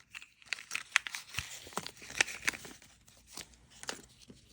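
Small plastic package being torn open and crinkled by hand: irregular crackles and rips, busiest in the first couple of seconds and then thinning out.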